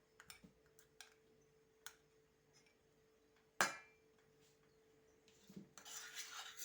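A spoon clicking lightly against a honey jar and saucepan, with one sharp knock about halfway through. Near the end the spoon starts scraping around the saucepan as the thick oat porridge is stirred.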